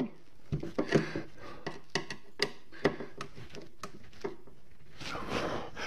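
Irregular light clicks and knocks as bolts are tightened down from inside a motorcycle top case, a hand tool and fingers knocking against the case. There is a short rustle near the end.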